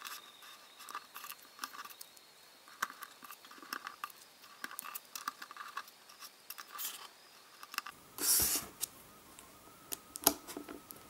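Small cardboard jigsaw puzzle pieces being handled and pressed into place on a tabletop: irregular light clicks and taps, with a brief louder scrape about eight seconds in and a sharp click near the end.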